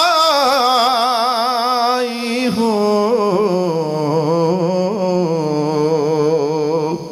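A man reciting a naat, holding a long melismatic line on a drawn-out syllable, his pitch wavering in quick ornaments; the voice breaks off near the end.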